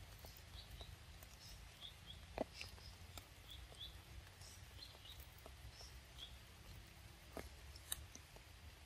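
Faint sounds of a baby macaque biting and chewing a piece of fruit: soft wet clicks and smacks, with two sharper clicks about two and a half seconds in and near the end. Faint short high chirps sound over it.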